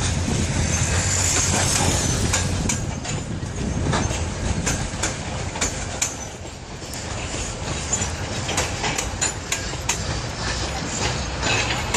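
Freight train of covered hopper wagons rolling past: a steady low rumble of steel wheels on rail, with repeated sharp clicks and knocks as the wheels cross rail joints.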